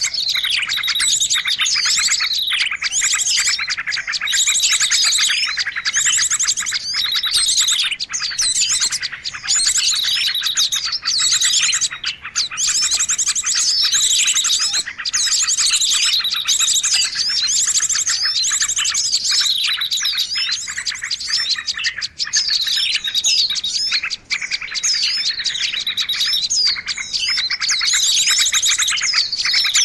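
Dense, noisy chorus of many small songbirds chirping and twittering over one another without pause: a bird-lure (pikat) recording used to call small birds in.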